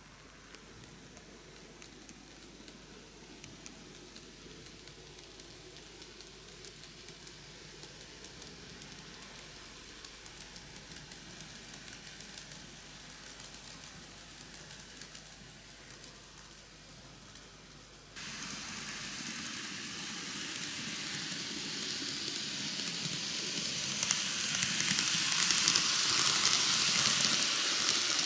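Microace N-gauge Seibu 4000 series model train running on TOMIX track: the fine, hissing rattle of its wheels and motor. The sound steps up abruptly about two-thirds of the way in and is loudest near the end as the train passes close by.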